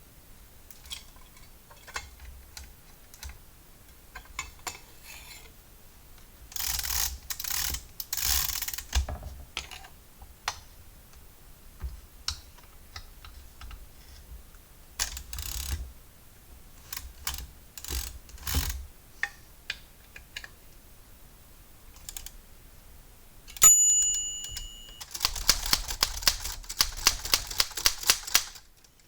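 Royal manual typewriter being worked: scattered clicks and a few short rattling bursts from its mechanism, then a single ding of the carriage bell about 24 seconds in, followed by a fast, even run of clicks near the end.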